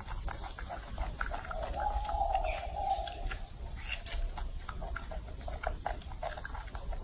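Baby macaque chewing a peeled orange: a run of small, wet chewing clicks, with one longer, drawn-out sound of about two seconds starting a little over a second in.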